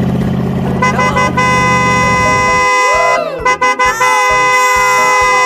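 Vehicle horn sound effect blaring long and steady, over a low engine rumble that fades out about halfway through. The horn breaks off briefly in the middle and comes back, with sliding, swooping tones around it.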